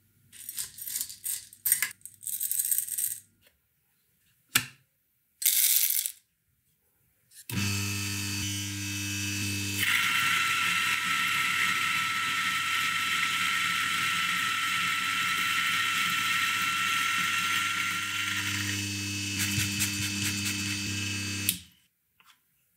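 Whole coffee beans rattling and clicking in short bursts as they are spooned and poured, then a Eureka Oro Mignon Single Dose coffee grinder's motor starts about seven seconds in and grinds the beans with a steady hum and a constant whine for about fourteen seconds before cutting off near the end.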